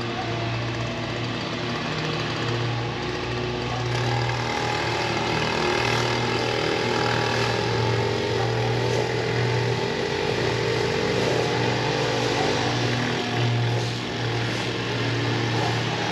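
Small gasoline engines of lawn equipment running steadily, with a higher note that rises and falls in pitch through the middle.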